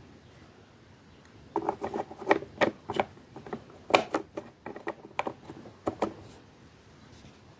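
An irregular run of short, sharp clicks and taps, starting about a second and a half in and stopping near six seconds.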